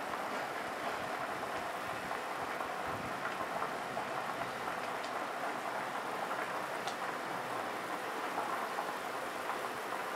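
Chicken soup at a rolling boil in a stainless steel saucepan on an induction cooker: a steady bubbling with a few faint pops.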